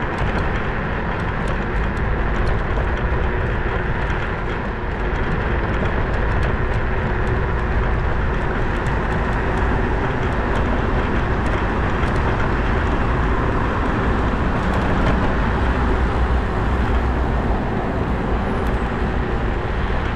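Steady running and road noise of a motorized two-wheeler on the move, with faint light ticks over it. It is the rider's check that the squeaks and rattles are cured after tightening the right handlebar grip and removing the front top case and a rattling key fob; he hopes the sound is now even.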